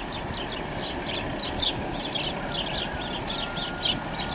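Songbirds chirping rapidly and repeatedly, over the low, steady rumble of a distant Class 60 diesel-electric locomotive (Sulzer engine) hauling a container freight train towards the listener.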